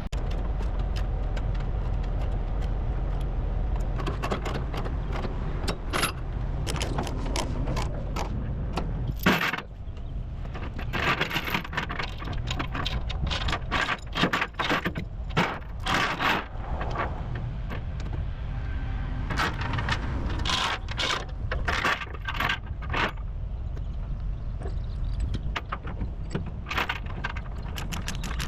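Steel tie-down chains rattling and clanking in many short bursts as the load is chained down to the trailer, over a steady low engine idle.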